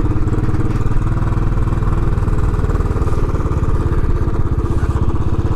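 Royal Enfield Classic 500's air-cooled single-cylinder engine running at low, steady revs, with an even, rapid beat.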